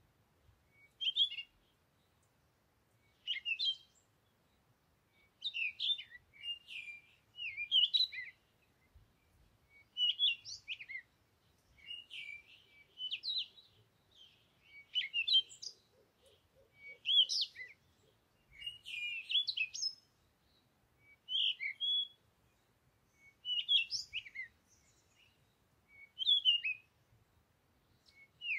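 A bird chirping in short phrases of quick, high notes, one phrase every second or two.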